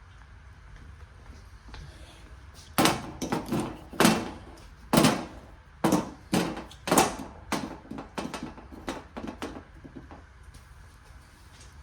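A run of about a dozen sharp, irregular clicks and knocks from parts and tools being handled in the engine bay, from about three seconds in until near the end.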